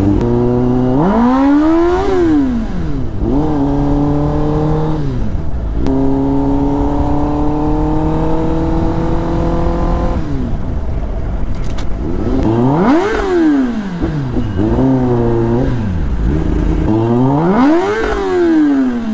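Kawasaki Ninja ZX-10R's inline-four engine under way, pulling up through the revs with a drop at each gear change, then a long steady climb. Near the end the revs rise and fall sharply in a few quick throttle blips.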